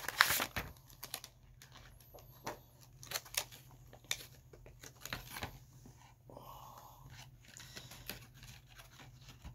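Plastic lure packaging being handled and opened: crinkling and clicking of plastic, loudest in the first second, then sparse light clicks and rustles as a soft-plastic bait is taken out.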